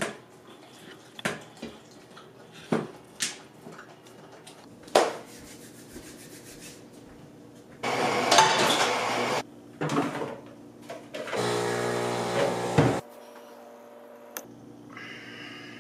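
Kitchen clatter: a few sharp clinks of dishes and pans, then about a second and a half of loud hissing, then a steady pitched hum of about the same length that cuts off suddenly.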